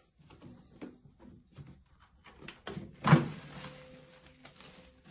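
Cardboard box and packaging of a new microwave oven being opened and handled: a string of short clicks and knocks, with one loud thump about three seconds in.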